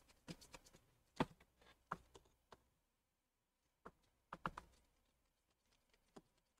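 Faint, irregular small clicks and ticks of a precision star-bit screwdriver turning out one of the tiny bottom screws beside an iPhone 7's charging port, with near silence in between. The sharpest clicks come about a second in and again around four and a half seconds.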